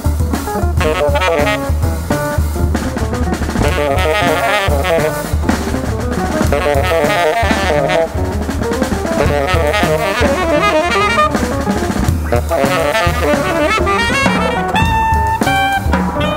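Jazz quartet playing: tenor saxophone playing quick lines over double bass and a drum kit with cymbals, the saxophone holding one long note near the end.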